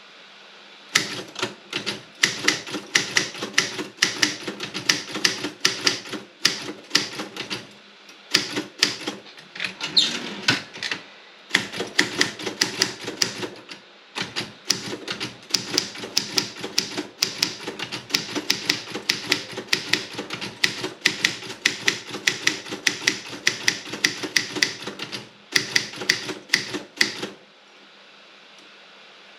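Robotron 24 typewriter being typed on: a fast run of key strikes with a few short pauses, stopping a couple of seconds before the end. A low steady hum runs beneath it.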